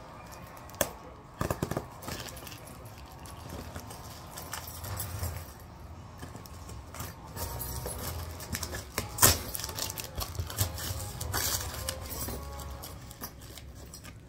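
Clear plastic packaging crinkling and rustling as it is pulled open by hand, with irregular sharp crackles; the loudest snap comes about nine seconds in.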